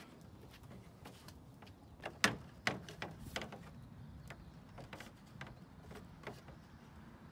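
Plastic clips of a Toyota Tacoma grille's chrome bezel clicking and snapping as they are worked loose by hand: one sharp snap about two seconds in, then a run of smaller clicks and scattered ticks.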